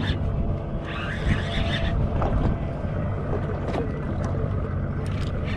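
Steady low rumble of a boat with wind buffeting the microphone, while an overhead jigging reel is cranked in against a hooked fish.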